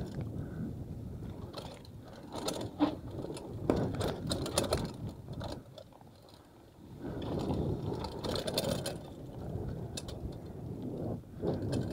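Mountain bike clattering over a rough trail: tyre noise with bursts of chain and frame rattle and knocks, in two rough stretches with a brief smoother lull between them.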